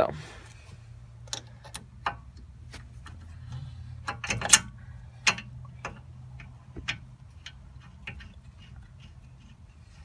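Scattered light metallic clicks and clunks, the loudest about four and a half seconds in, as a front disc brake caliper with new pads is set back over the rotor of a 1979 Camaro. A faint steady low hum runs underneath.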